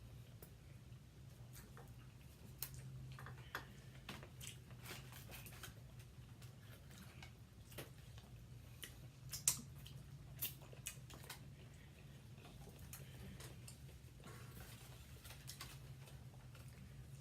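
Quiet eating: faint chewing with scattered small clicks and taps, the loudest about nine and a half seconds in, over a steady low hum.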